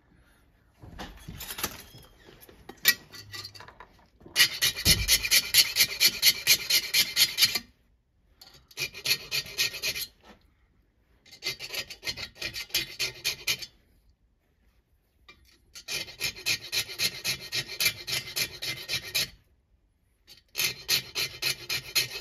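A hand file rasping across the end of a two-stroke piston ring in quick back-and-forth strokes, in five bursts of two to three and a half seconds with short pauses between: the ring gap is being filed open because it was too tight. Light scraping and a single click come first.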